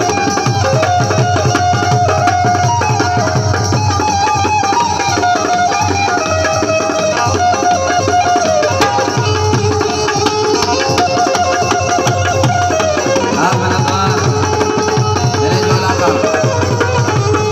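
Instrumental passage of live Balochi folk music: a harmonium plays the melody over a steady tabla and hand-drum rhythm.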